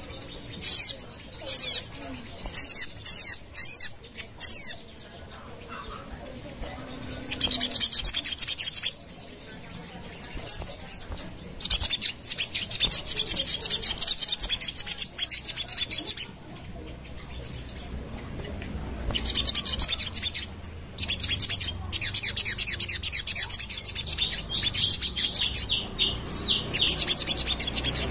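A sogon songbird singing. At first it gives short bursts of high, quick chirps, then long runs of rapid high twittering broken by brief pauses.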